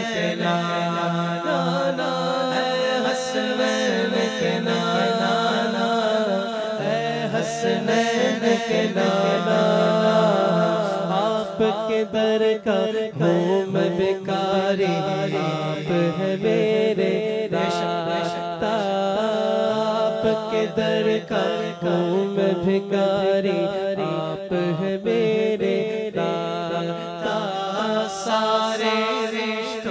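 Naat recitation: devotional Urdu singing in a chanted melody, voices carrying the tune over a steady low drone.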